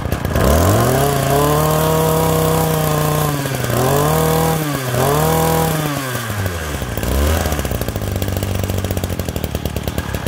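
Ryobi 26cc two-stroke brush cutter engine, just started, revving up three times with dips between, then dropping to a steady pulsing idle from about eight seconds in.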